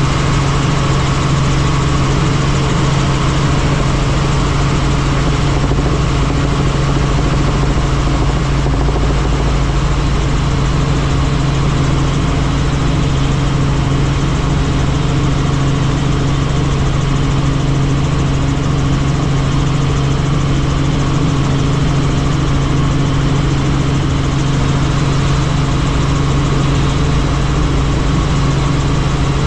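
Helicopter running steadily: a constant loud engine and rotor drone over a steady low hum, with no change throughout.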